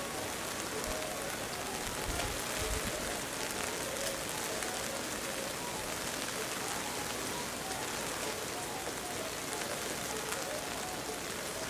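Steady rain falling, with a few low bumps about two to three seconds in.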